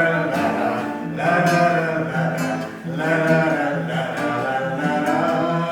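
Acoustic guitar playing a bard song accompaniment, with a singing voice over it.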